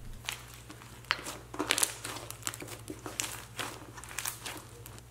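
Thick slime mixed with foam beads and shredded foam being stretched and squeezed by hand, giving irregular crackling and crunching pops.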